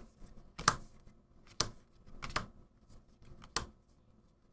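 Trading cards being flipped through by hand, each card sliding off the stack with a short, sharp snap, about one a second at an uneven pace.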